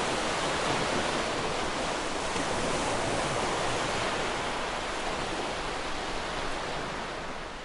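Recorded ocean surf: a steady wash of wave noise, fading out near the end.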